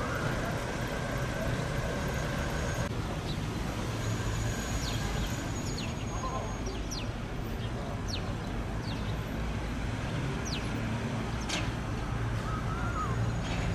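Steady road-traffic rumble, with scattered short, high, falling bird chirps.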